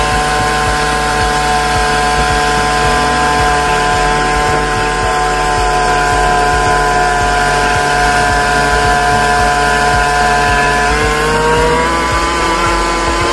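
Speedboat engine running steadily at speed while towing, over the rush of churning wake water; near the end the engine's pitch rises as it speeds up.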